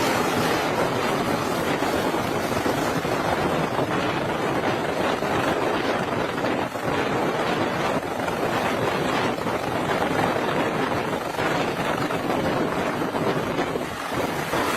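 Steady, loud rushing noise with no clear pitch or rhythm.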